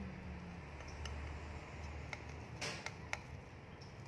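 Metal cake server clicking faintly against a glass baking dish as a slice of baked pizza is lifted out, with a brief scrape about two and a half seconds in, over a low steady hum.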